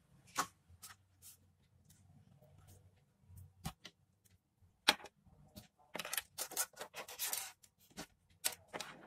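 Handling noise from a homemade earphone headband being handled and laid on a tabletop: scattered sharp clicks and knocks, with a stretch of rustling about six to seven and a half seconds in.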